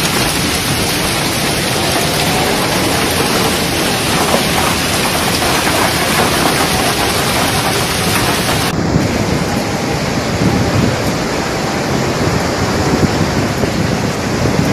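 Hail and rain falling heavily, a loud, dense, steady hiss of hailstones hitting the ground. The sound changes abruptly about nine seconds in as one recording gives way to another.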